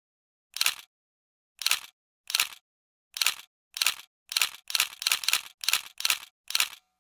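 Camera shutter sound effect clicking about a dozen times, with dead silence between the clicks. The clicks start about a second apart and speed up to about three a second.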